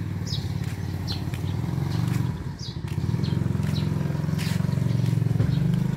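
A motor vehicle engine running steadily, with a brief dip about two seconds in. Short falling bird chirps repeat over it.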